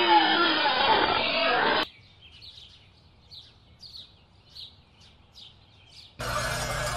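Piglets grunting and squealing, cutting off abruptly about two seconds in. Faint, quick bird chirps follow, repeating about three times a second, and louder music cuts in near the end.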